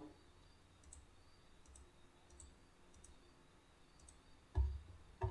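Faint computer mouse clicks, a few of them about a second apart, as photos are clicked through in a viewer, followed by a louder low thump near the end.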